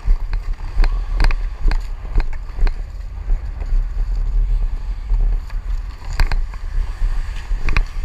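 Ice hockey skates striding and scraping on the ice, with sharp clicks of a stick blade on the puck, over a steady low rumble from a worn camera moving at skating speed.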